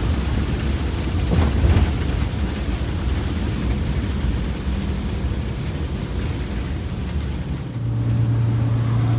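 Detroit Diesel 8V92TA two-stroke V8 turbo diesel, freshly fitted with four new pistons and liners, running under way, heard from inside the bus cab with road rumble. Near the end the rumble drops away and a steady low hum takes over.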